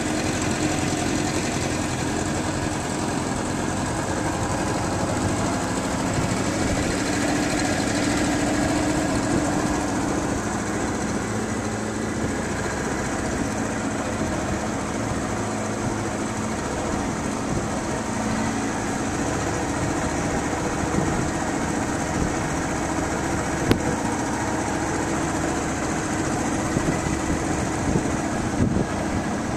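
Motorized canoe's engine running steadily as the boat moves along the river, with one sharp tap about three-quarters of the way through.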